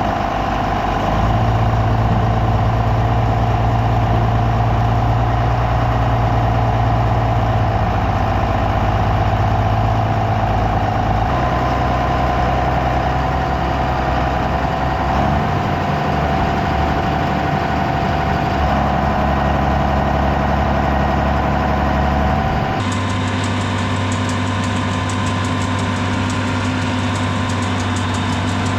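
Farm machinery engine running steadily, its pitch stepping slightly a few times. About three quarters through, the sound changes abruptly to a different, steady engine note.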